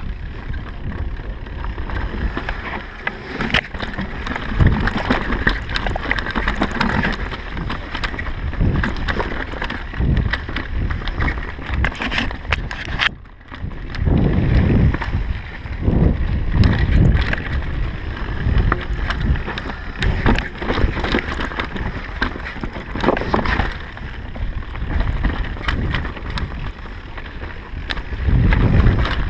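Mountain bike descending a dirt downhill trail: wind buffeting the microphone, tyres rumbling over the ground and the bike rattling with many short knocks. The sound drops out briefly about thirteen seconds in.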